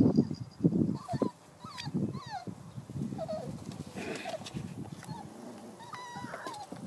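Entlebucher Mountain Dog puppies giving short high whimpers and squeaks, several sliding down in pitch, with one wavering whine near the end. Dull thumps and knocks near the start.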